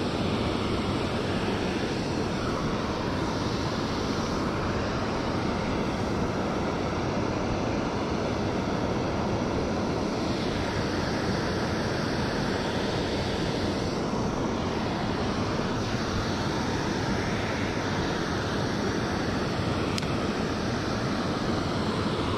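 Steady rushing of water pouring over a concrete spillway weir, with some wind on the microphone.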